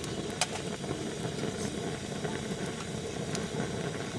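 Wood campfire burning: a steady low rushing sound with a few sharp crackling pops.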